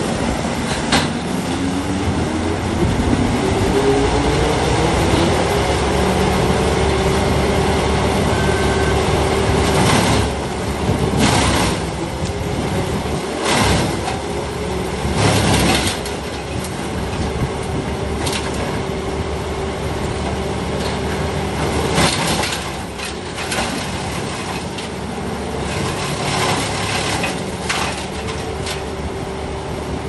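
Bandit Model 250 wood chipper running steadily, its engine note climbing over the first few seconds and then holding. Several loud bursts of cracking and grinding break in as branches and logs are fed through and chipped.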